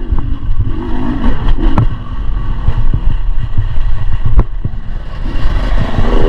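Beta 300 RR two-stroke dirt bike engine revving up and down under riding load, its pitch rising and falling. Sharp knocks and clatter from the bike run through it.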